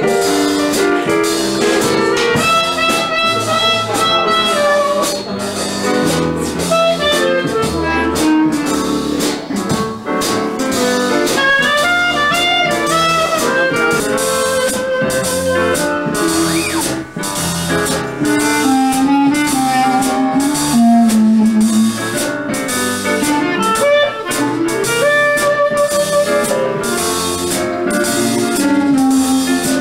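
Live traditional jazz: a clarinet plays the melody over a small band with drum kit and upright bass.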